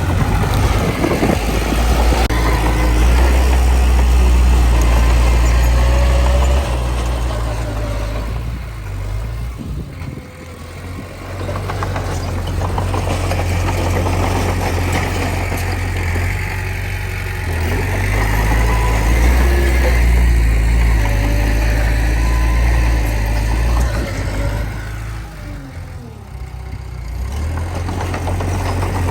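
Komatsu D20P bulldozer's diesel engine working hard as it pushes soil, its loudness swelling and easing. There are two long loud stretches, with a dip about ten seconds in and another near the end.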